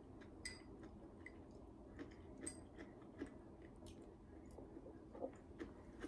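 Faint sounds of someone eating at a table: quiet chewing with small clicks and ticks scattered through, over a near-silent room.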